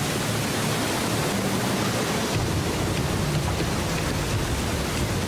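Rushing ocean water and breaking surf: a steady wash of noise that grows deeper about two seconds in.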